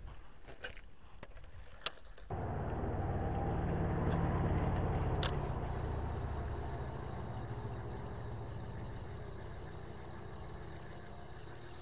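A few light clicks, then about two seconds in a motor vehicle's engine comes in suddenly, swells and slowly fades away, like a car or truck going past.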